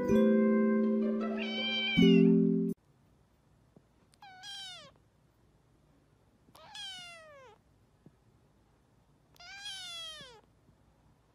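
Music plays briefly and stops abruptly, then a white long-haired kitten meows three times, about two and a half seconds apart. Each meow is drawn out and falls in pitch.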